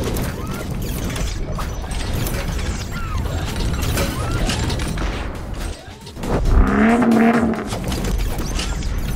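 Sound effects for a car-assembly animation: mechanical clicks, ratcheting and gear sounds over a steady low rumble, with a pitched whine that rises about six and a half seconds in.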